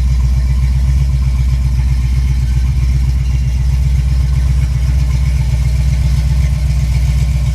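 1971 Chevy Nova's 383 stroker V8 running steadily at idle, with an even, pulsing exhaust note and no revving.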